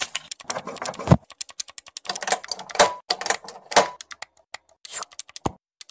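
Rapid, irregular clatter of keys being hit, like fast typing or button-mashing, with a few heavier clacks at about one-second intervals.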